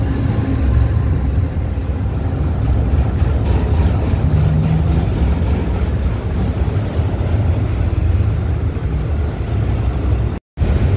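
Double-stack intermodal freight train's loaded well cars rolling past close by: a steady, heavy rumble of steel wheels on the rails. The sound drops out for a split second near the end.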